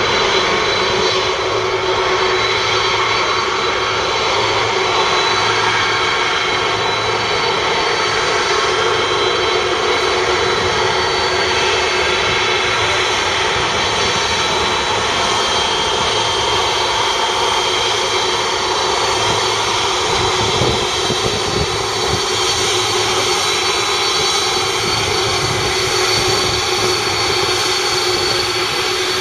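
Boeing 747-400's four jet engines running at low taxi thrust: a loud, steady whine over a rumbling roar.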